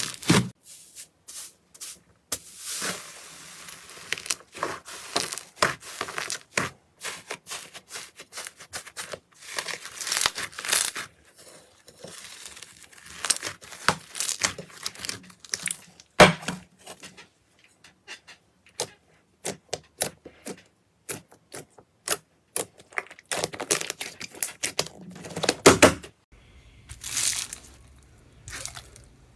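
Slime being squeezed, pressed and pulled apart, giving crisp crackling, popping and tearing sounds in dense clusters of clicks, with changes in texture every few seconds.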